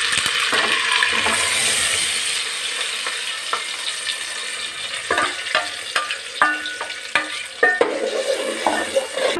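Tomato purée hitting hot oil and ginger-garlic paste in a metal pot, sizzling and fading over the first few seconds. From about five seconds in, a spoon stirring, scraping and knocking against the metal pot, the knocks briefly ringing.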